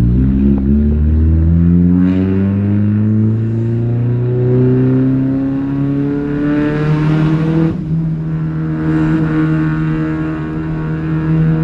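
Chevrolet Astra with a loud exhaust, accelerating hard in a low gear: the engine note climbs steadily for about eight seconds. It then drops suddenly to a lower pitch and holds there steadily.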